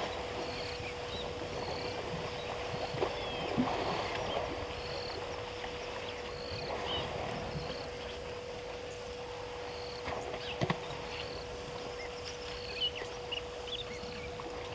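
African elephants wallowing in a waterhole, water sloshing and splashing around their bodies, with a couple of sharper splashes. A short high call repeats about once a second above it, over a steady hum.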